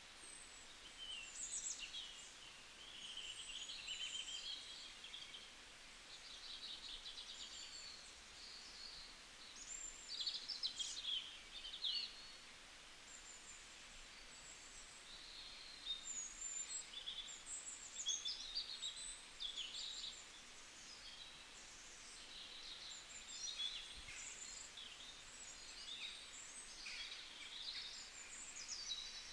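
Small songbirds chirping and singing: many short, high chirps and trills, faint and overlapping.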